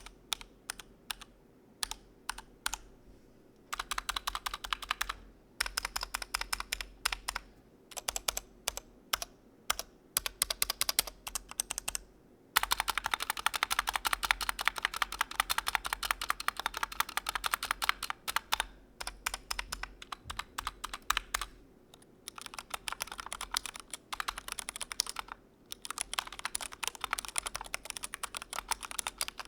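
Keys of a GMMK Pro mechanical keyboard being typed on. It starts with separate keystrokes, then comes in runs of fast continuous typing with short pauses between. The densest and loudest run falls around the middle.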